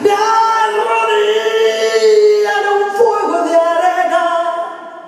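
A woman singing live into a microphone, holding long notes and moving from one pitch to the next; the singing fades away near the end.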